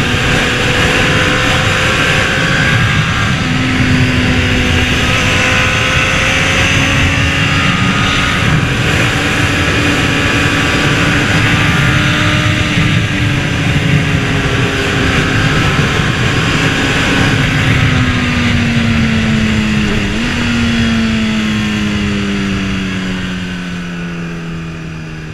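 Honda CBR600RR's inline-four engine running at speed, its note rising and falling with the throttle, over heavy wind rush on the helmet-camera microphone. Near the end the engine note falls steadily as the bike slows, and the sound fades out.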